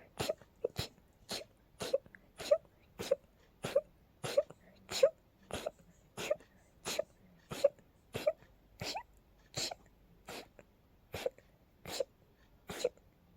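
A person's rapid sneezing fit, brought on by allergies: a long run of about twenty short, sharp sneezes, one about every two-thirds of a second, each with a brief voiced catch.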